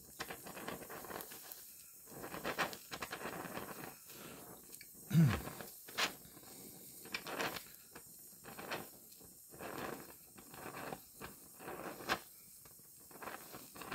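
Welding torch fusing the steel edge of a car trunk lid while a filler rod is dabbed into the puddle: an irregular crackling and spitting, with a louder thump about five seconds in. The rod is being used because the thin metal gaps open without it.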